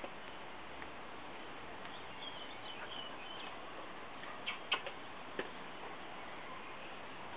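Quiet steady background with faint, thin high chirps a couple of seconds in, then about four short sharp clicks a little after halfway.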